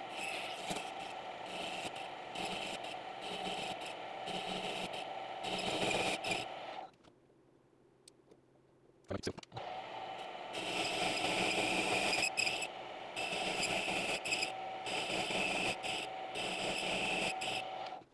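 Small benchtop metal lathe running, a steady motor whine under the scraping of the cutting tool on a bushing held in the chuck. It stops about seven seconds in, starts again about two seconds later, and stops just before the end.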